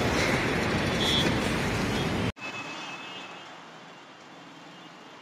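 Loud road traffic and vehicle noise, a dense rumble and hiss, which cuts off abruptly a little over two seconds in. A much quieter traffic background follows.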